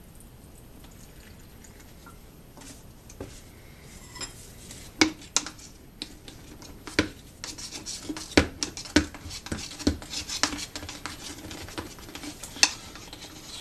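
A thin rod stirring and poking manure slurry inside a plastic bottle, mixing it for a methane digester: irregular clicks and knocks of the rod against the bottle, with scraping. It starts a couple of seconds in and comes thicker and faster from about seven seconds in.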